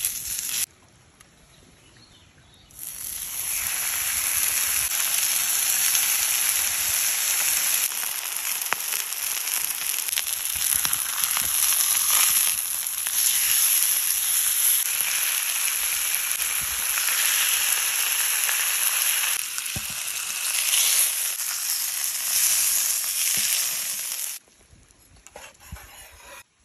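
Beef steak sizzling on a hot stone slab over a wood fire: a loud, dense frying hiss that starts about three seconds in and cuts off suddenly near the end.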